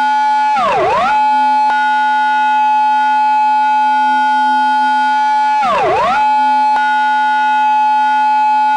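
Recreated Japanese police car siren in its intersection-entry pattern: a steady high wailing tone that twice swoops sharply down and straight back up, about five seconds apart.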